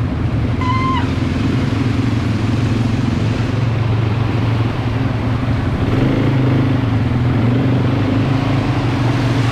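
ATV (quad bike) engine running under way with a steady drone, its pitch shifting as the throttle changes about six seconds in. A brief high chirp sounds about a second in.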